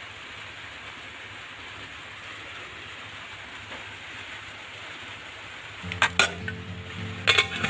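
Sharp metal clanks of a pressure cooker and its lid being handled, two pairs about six and seven seconds in, over a steady hiss. Soft background music comes in shortly before the clanks.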